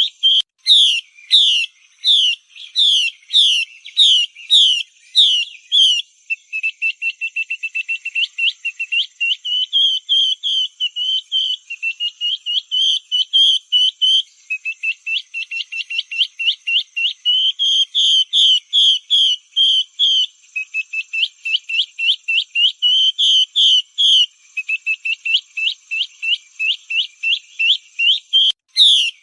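Female Chinese hwamei calling in long runs of short whistled notes, each sliding down in pitch. Some runs are rapid and some slower, with brief breaks. This is a lure call used to draw caged hwamei into singing.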